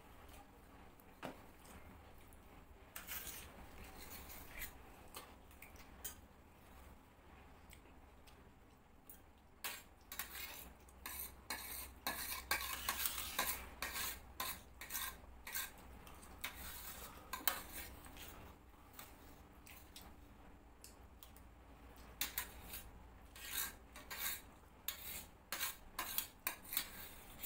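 Metal spoons scraping and clinking against stainless steel plates as two people scoop up soft cooked dalia, in irregular strokes that come thickest in the middle and again near the end.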